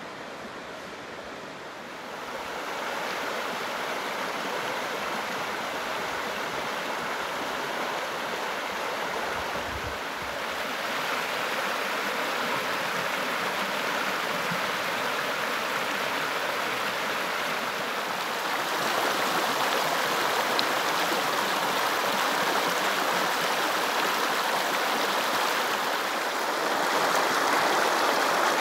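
Shallow river water running over rocks in riffles: a steady rushing that grows louder in a few steps.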